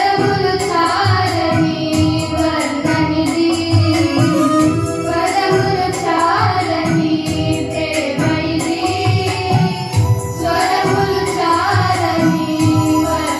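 A group of girls singing a song together into microphones, with an instrumental accompaniment keeping a steady beat.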